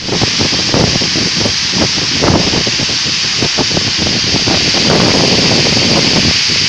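Waterfall: a loud, steady rush of falling water with uneven splashing.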